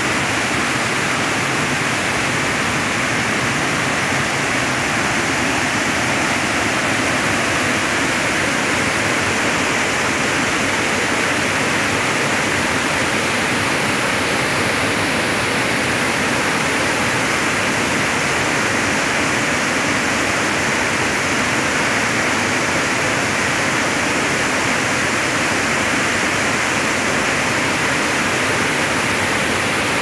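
Waterfall with a heavy flow of foaming water pouring over rocks: a loud, steady rush of water with no change.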